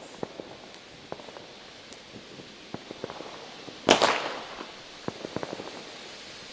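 New Year's Eve fireworks and firecrackers going off: scattered small pops throughout, one loud bang a little under four seconds in that echoes briefly, then a quick cluster of small pops.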